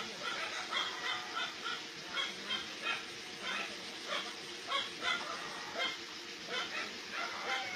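Dogs barking, many short barks in quick irregular succession: alarm barking at a Sumatran tiger nearby.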